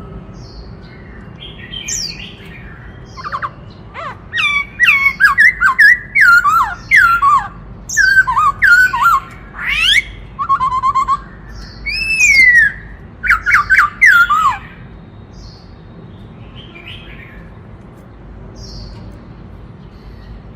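Black-throated laughingthrush singing: a run of loud, clear whistled phrases made of quick, mostly downward-sliding notes. The run starts about four seconds in and stops around two-thirds of the way through, with a few faint, softer calls before and after.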